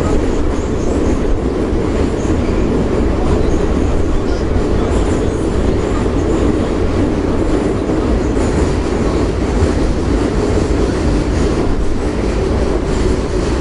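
Yekaterinburg metro train (81-717/714 cars) running through the tunnel, heard from inside the carriage: a loud, steady rumble of wheels on rail and running gear.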